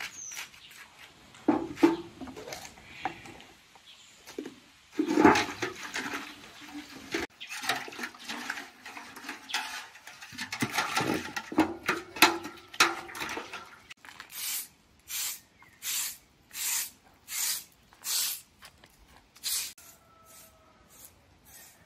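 Water sloshing and splashing in a metal bucket as hands work in it. From about two-thirds of the way in, a straw hand broom sweeps concrete and grit with regular short strokes, about eight of them at roughly one and a half a second.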